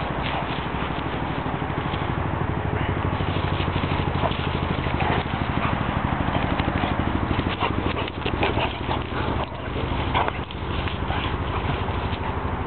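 A young Kuvasz and a Labrador mix playing rough, with scuffling and short sounds from the dogs, loudest about eight to ten seconds in, over a steady low hum.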